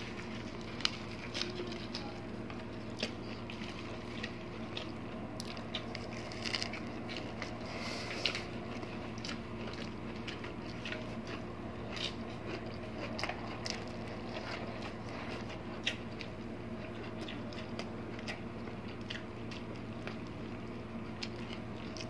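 Close-miked eating sounds of two people: biting and chewing braised pork and lettuce wraps, with scattered small clicks and crackles over a steady low hum.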